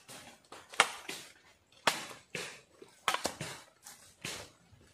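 Machete hacking at a thin wooden pole: a series of sharp chops roughly one a second, the loudest about a second in.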